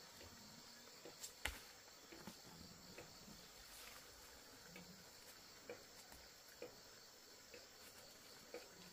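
Faint, steady chirring of an insect chorus, with a few light clicks and knocks scattered through it, the sharpest about a second and a half in.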